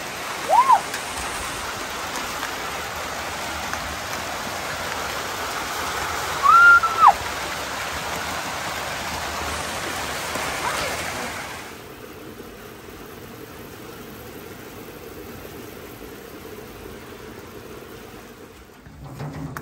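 Steady rain falling, which drops away sharply about twelve seconds in and leaves a quieter hiss. Two short, high, whistle-like tones that rise and fall sound over the rain, one just after the start and one about six and a half seconds in.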